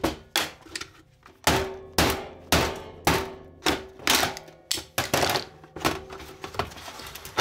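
Repeated sharp knocks and clacks, about two a second, many with a short ringing note after them, as an Instant Pot's plastic-and-steel lid is pried with a screwdriver and knocked about on a metal workbench.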